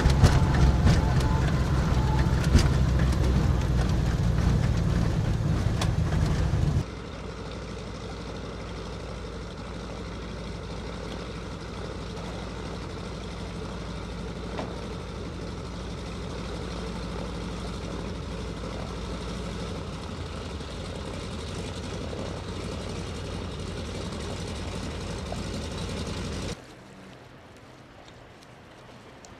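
Seaplane engine running steadily, loud at first, then cut abruptly to a quieter steady drone about seven seconds in, and cut again to a fainter one near the end.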